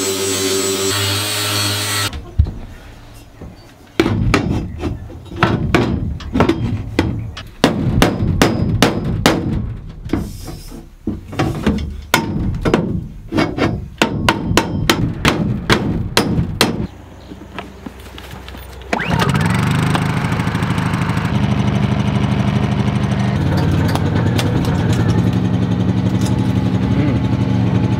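A handheld angle grinder cleaning up the metal frame, which cuts off about two seconds in and spins down. Then a hammer knocks repeatedly and irregularly on the metal window frame for some thirteen seconds. From about nineteen seconds a portable generator's engine runs steadily under the load of a welder, a generator the owner doesn't think is strong enough for it.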